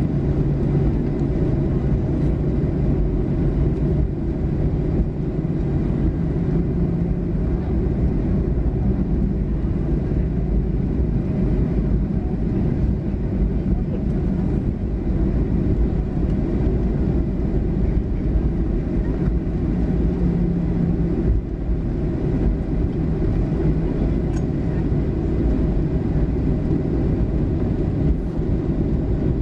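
Boeing 737-800 taxiing, heard inside the cabin: a steady low rumble from its CFM56-7B engines at taxi power, with a faint low hum.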